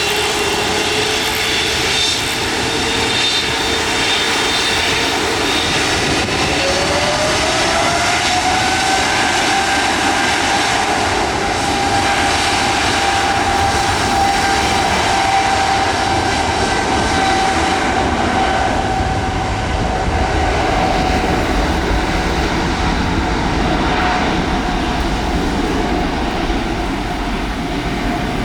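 Boeing 777 jet engines running loud, with a whine that rises in pitch about six to nine seconds in and then holds steady over the roar.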